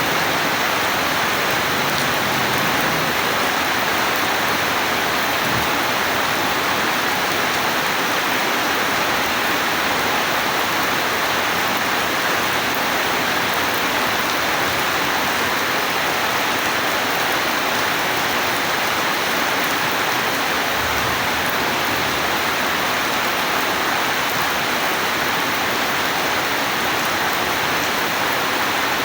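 Rain falling steadily, an even hiss with no change in strength.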